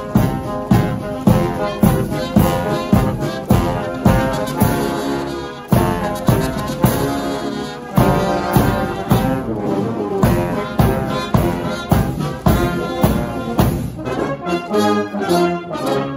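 Military marching band playing a march on the move, the brass led by trombones, over a steady drum beat about twice a second.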